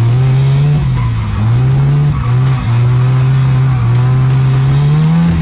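Drift car's engine heard from inside the cabin, held high in the revs, its pitch dipping and climbing several times as the throttle is worked through a drift.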